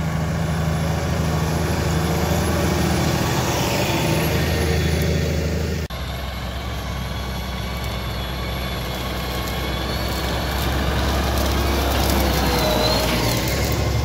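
Claas Axion tractor's six-cylinder diesel engine running steadily under heavy load, pulling a reversible plough. The sound breaks for an instant about six seconds in and picks up again slightly deeper.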